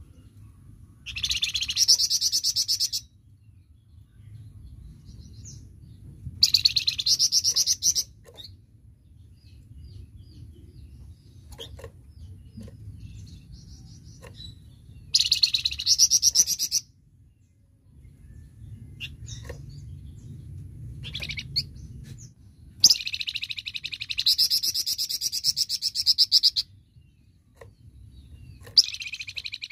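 Flamboyan songbird singing in rapid, machine-gun-like bursts of high chattering song, the fast 'tembakan' delivery prized in contest birds. There are five bursts: about a second in, around six seconds, around fifteen seconds, a longer one from about twenty-three to twenty-six seconds, and one starting near the end, with a faint low rumble between them.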